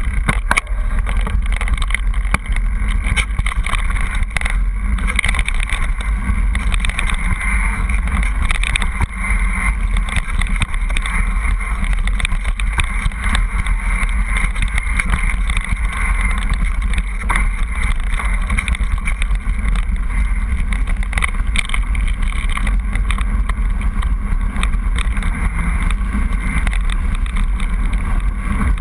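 Mountain bike riding fast down a rough gravel and rock path: a steady rumble of wind on the microphone over tyres crunching on stones and the bike rattling, with frequent small knocks from the trail.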